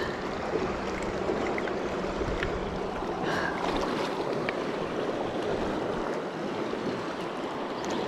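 Rushing of the Arkansas River running high, a steady even wash of water noise, with a few faint ticks.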